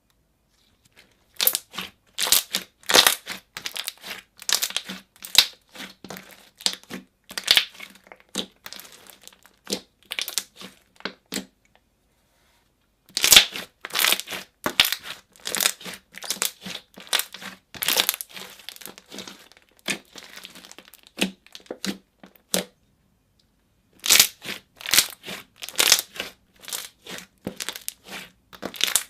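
Slime being squeezed and poked by hand, giving rapid, crackly clicks and pops from trapped air. It comes in three bursts with abrupt silent breaks between them.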